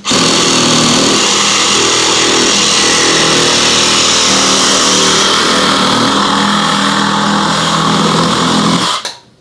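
Cordless reciprocating saw cutting through plastic PVC pipe, running steadily for about nine seconds and stopping near the end.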